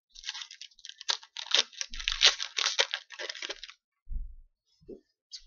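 Wrapper of a hockey card pack crinkling and tearing as it is opened, a dense run of fine crackles lasting about three and a half seconds. A soft low knock follows about four seconds in.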